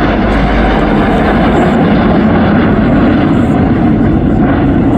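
Five BAE Hawk T1 jets flying past in close formation, a loud, steady jet roar.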